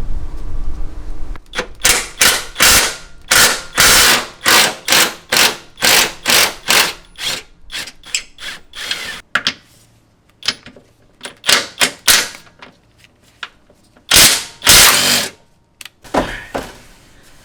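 Hand ratchet on a 17 mm socket loosening the rear control-arm bolt, clicking in short strokes at about two a second, then a few slower strokes with pauses.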